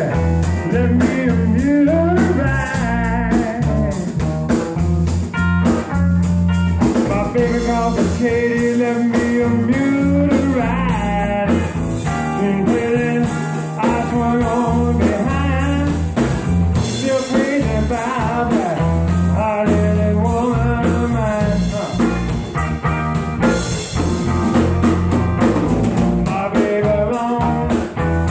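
A live band plays a bluesy rock song: a semi-hollow electric guitar, an electric bass and a Pearl drum kit, with a man singing into a microphone.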